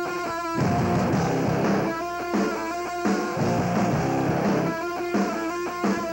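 Rock music led by guitar, with no singing; a riff comes round again about every three seconds.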